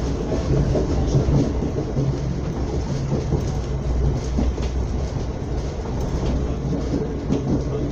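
Srbija Voz passenger train running at speed, heard from inside the carriage: a steady low rumble from the wheels and running gear on the track.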